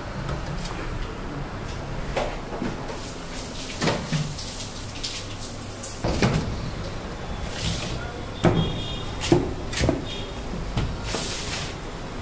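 Irregular knocks and thuds as a large cobia and a cleaver-like knife are handled on a wooden chopping block and steel counter, over a steady low hum.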